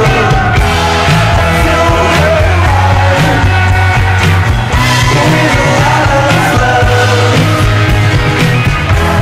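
Loud rock music from a slow band jam, dense and continuous, with a strong, steady bass line underneath.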